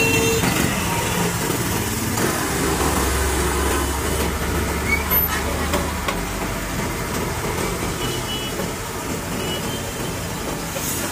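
Diesel engine of a Komatsu PC120-5 tracked excavator running on a lowboy trailer, with a deeper drone for a few seconds in the middle, amid road traffic noise. A short horn toot sounds at the very start.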